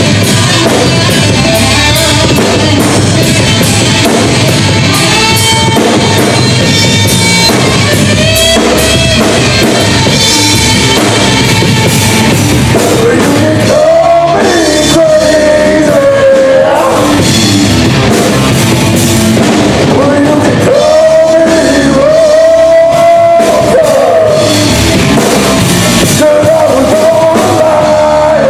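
Live rock band playing loud: electric guitars and a drum kit with a male singer. Long held sung notes come in about halfway through.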